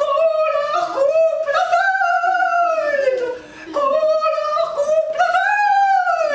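A woman singing unaccompanied in a high voice, holding long notes that slide up and down, in two phrases with a short pause for breath about three and a half seconds in.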